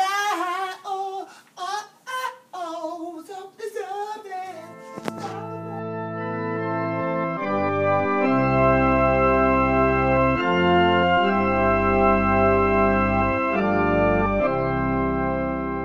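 A voice singing a wavering line for the first few seconds, then organ chords fade in and hold, swelling to full volume and changing chord every second or two.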